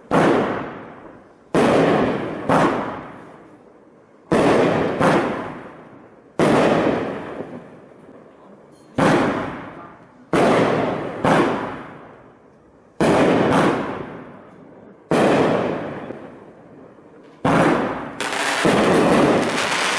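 A 12-shot consumer fireworks cake (TopGun 'Malicious') firing: sharp bangs every one to two seconds, several coming in close pairs, each trailing off with echo. Near the end the bangs come thick and run together.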